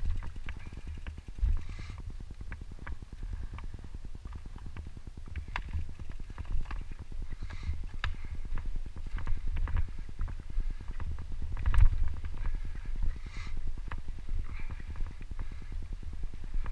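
Mountain bike riding fast down a dirt singletrack: a constant low rumble from the tyres on the dirt and the shaking of the bike, with frequent rattling clicks and knocks as it goes over bumps. One heavier thud comes about twelve seconds in.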